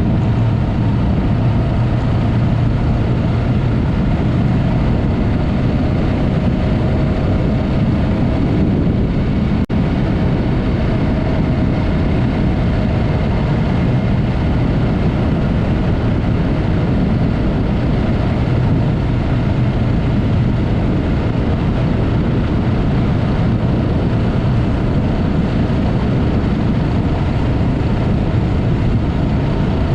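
Yamaha MT-03 motorcycle with a Mivv aftermarket exhaust running steadily under way, its engine note mixed with a constant rush of wind over the microphone. There is a brief click about ten seconds in.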